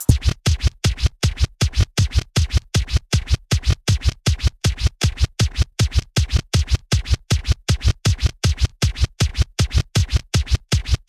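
Electronic music built from Music Maker JAM loops, ending on a fast, even stutter of short chopped hits, about four a second, each with a deep low thump.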